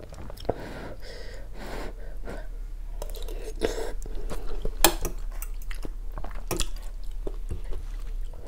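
Eating kuay jap noodle soup close to a clip-on mic: slurping broth from a metal spoon and chewing, with a few sharp clicks of the spoon against the bowl, two of them about halfway through.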